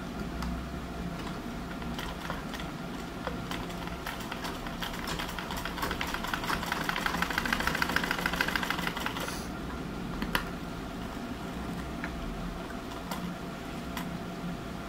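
Straight-stitch sewing machine running: a rapid, even clicking of the needle and mechanism stitching through cotton fabric starts about four seconds in, runs for about five seconds, then stops. Afterwards come a few isolated clicks as the handwheel is turned and the fabric is pulled away, over a steady background hum.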